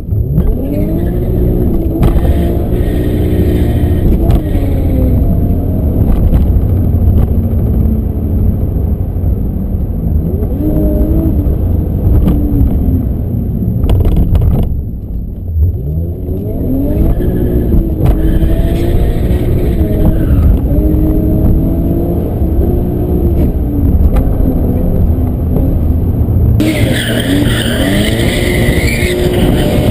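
BMW E34 M5's straight-six engine revving up and down hard under load, heard inside the cabin, with a brief lift-off about halfway through. Near the end, heard from outside, the engine runs hard while the tyres squeal as the car drifts.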